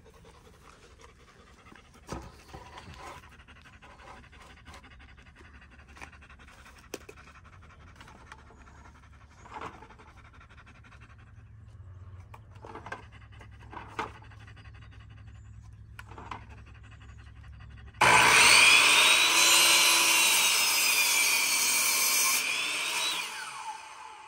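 A few light knocks and rubs as a wooden board is positioned, then an electric miter saw starts with a sudden loud whine and cuts through the board about three quarters of the way in, its motor winding down near the end.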